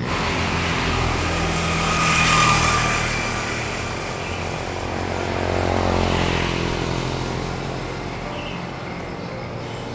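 Two vehicles passing by on a road, the noise swelling and fading, loudest about two and a half seconds in and again about six seconds in.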